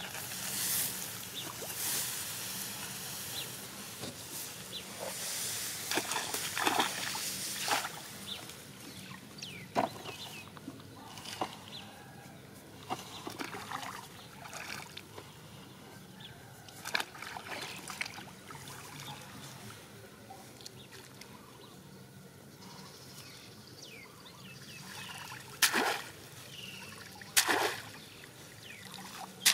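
Pond water sloshing and trickling as a round woven bamboo basket lift net is dipped and hauled up on a bamboo pole, with scattered knocks and two sharp splashes near the end.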